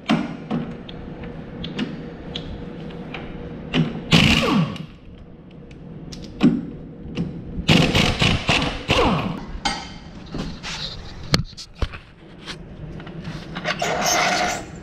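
Pneumatic impact wrench loosening the cutter bar's nuts and bolts, running in short bursts about four seconds in, around eight to nine seconds, and again near the end, some bursts dropping in pitch as the air motor spins down, with metal clinks and knocks in between.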